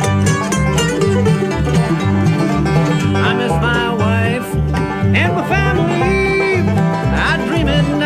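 Bluegrass music, an instrumental break with banjo and guitar picking over a steady, repeating bass line, with sliding melody notes.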